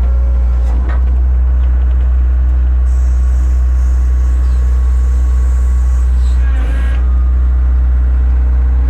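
Kobelco SK150 Mark III excavator's diesel engine running steadily at idle, a deep, even hum. A brief burst of shifting higher tones comes about six and a half seconds in.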